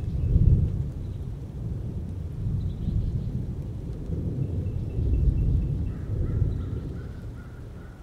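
Thunder rumbling in long rolls, swelling about half a second in and again around five seconds, then dying away toward the end.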